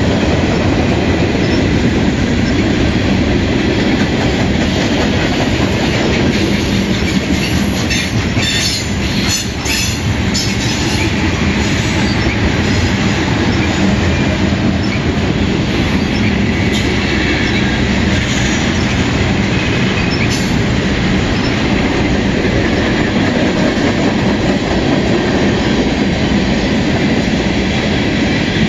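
A long freight train passing close by at speed: the steady rumble of its cars on the rails with a clickety-clack of wheels over rail joints. Brief squeals and clicks from the wheels come about a third of the way through.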